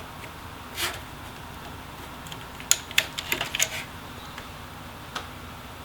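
Small laptop parts and tools being handled: a soft brush about a second in, then a quick cluster of light clicks and taps around the middle.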